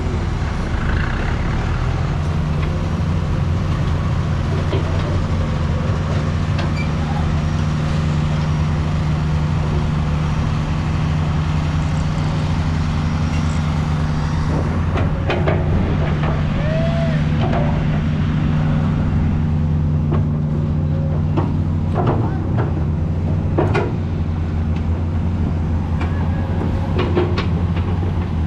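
Heavy diesel engine of a dump truck or excavator running steadily at a low, even speed, with a few short knocks in the second half.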